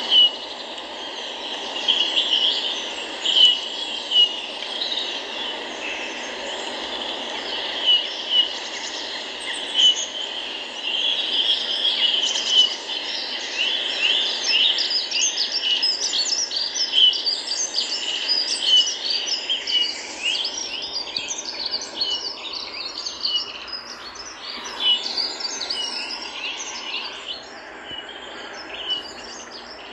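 Birds chirping and calling over a steady hiss, the chirps busiest in the middle stretch.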